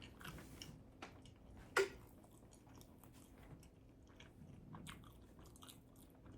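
A person chewing and biting a tuna melt sandwich close to the microphone, with many soft irregular mouth clicks. There is one louder short sound about two seconds in.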